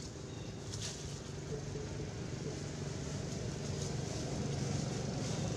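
A steady low motor hum, like a vehicle engine running at a distance, growing gradually louder, with a brief rustle of dry leaves just under a second in.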